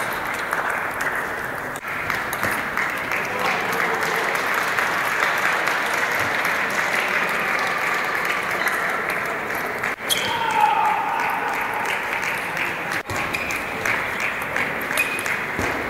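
Spectators in a sports hall applauding and talking, with now and then the sharp click of a table tennis ball being hit. The noise breaks off briefly twice in the second half.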